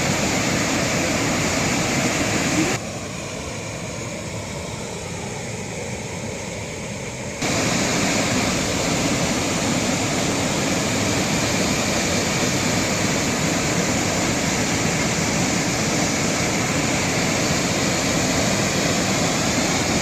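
Steady rush of a waterfall, dropping quieter and duller for about four and a half seconds, a few seconds in.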